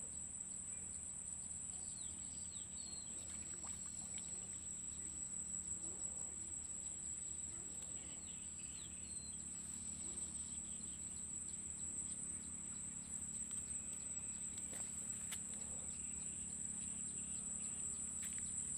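Insects trilling in one steady high-pitched tone, with a few faint chirps above it.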